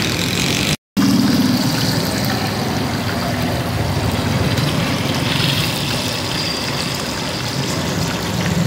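Battered fish pieces deep-frying in a large wok of hot oil, the oil sizzling and bubbling steadily, with a low hum underneath. The sound cuts out briefly just under a second in.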